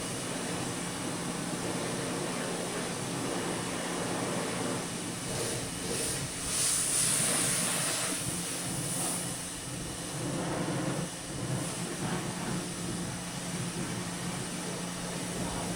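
Pressure washer running with a steady motor hum and the hiss of its water jet spraying an ATV. The spray gets louder and brighter about six seconds in, then eases off after about nine seconds.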